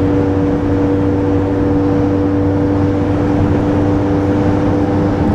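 Vehicle interior noise at highway speed: a steady drone of road, tyre and engine noise with a constant low hum.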